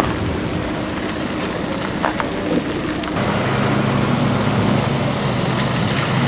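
A motor engine running over a constant rush of wind or water noise. About three seconds in, a steady, deeper engine hum comes in and grows a little louder.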